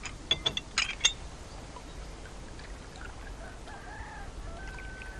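A rooster crowing faintly in the second half, over quiet outdoor ambience, after a few sharp clicks near the start.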